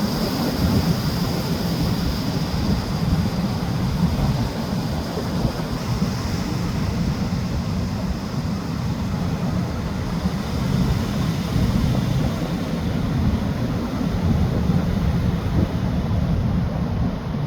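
Big ocean waves breaking on the shore, with wind buffeting the microphone into a steady, loud low rumble.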